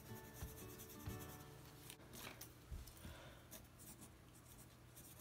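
Faint scratching of a white colored pencil rubbing back and forth over paper, blending and burnishing a shaded red strip.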